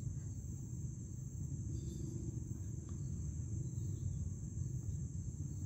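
A steady, high-pitched drone of insects, over a low rumble.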